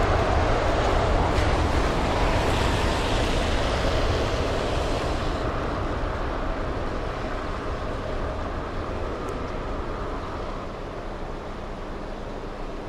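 Boeing 787-9's GEnx-1B turbofan engines at takeoff power, a steady jet rumble with spray hiss from the wet runway. It fades steadily as the airliner rolls away, and its high end dies off about five seconds in.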